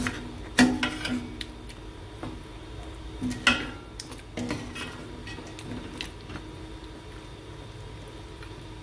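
A steel ladle stirring mutton karahi in a stainless steel pot, clinking and scraping against the pot's sides, with the loudest clinks about half a second in and at about three and a half seconds. After about six seconds the clinks stop and only a steady low hiss remains.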